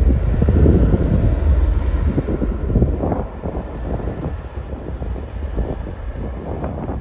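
Twin-engine jet airliner's engines running at high power as it rolls down the runway: a loud rumble with crackle that drops off after about three seconds as the aircraft moves away.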